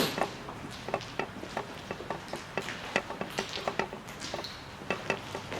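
Footsteps over a debris-strewn floor: a string of irregular light clicks and crunches, a few every second.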